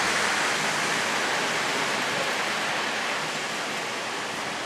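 O-scale model coal train's wheels rolling on the three-rail track, a steady rushing rumble that slowly fades as the train moves away.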